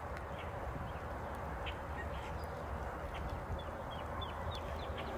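Steady hiss of rain with a low rumble beneath it, over a scatter of short, high, downward-sliding bird chirps that come in a quick run in the last second and a half.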